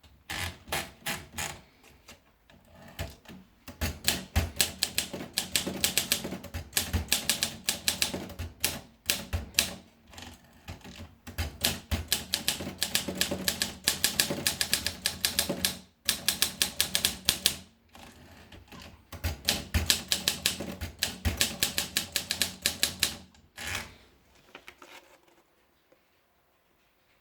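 Olympia SM2 manual portable typewriter being typed on: fast runs of sharp keystroke clacks, broken by a few short pauses, stopping near the end.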